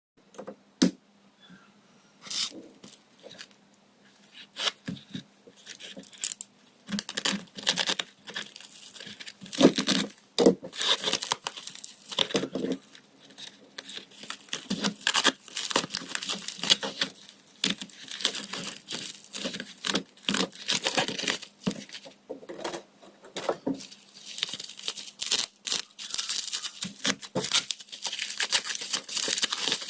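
Packaging being torn open and crinkled by hand: a steady run of irregular rustles, rips and crinkles, with a faint steady hum underneath.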